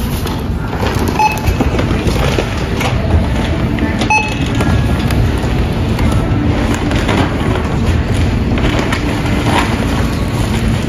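Supermarket checkout barcode scanner beeping twice, about three seconds apart, as items are scanned, over a steady low rumble of store noise and handling.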